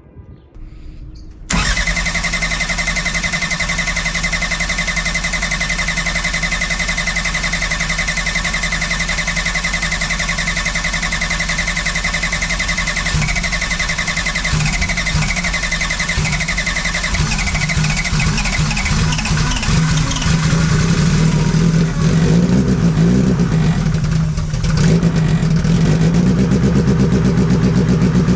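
Rebuilt Toyota 3S-GTE turbocharged four-cylinder race engine on its first start: the starter cranks it with a steady whine for about twelve seconds, then the engine fires unevenly, catches and settles into running, with small rises in revs near the end.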